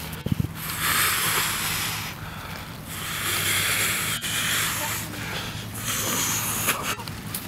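A white sheet swished and rustling as it is swung about, in repeated rushing swells of a second or two each over a low steady hum, with a sharp click about four seconds in.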